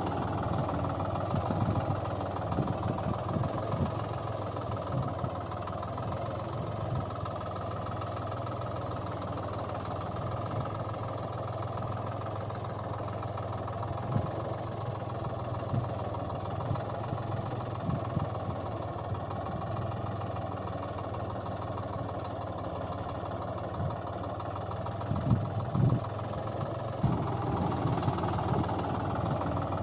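Steady tractor-engine drone running without a break, with a few louder low knocks about halfway through and again near the end.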